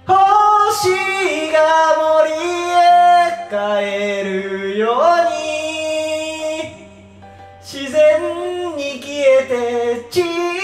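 A man singing a slow ballad melody a cappella into a karaoke microphone, with no backing track, holding long notes through the room's speakers. One note swoops upward about five seconds in, and there is a short drop in level a couple of seconds later.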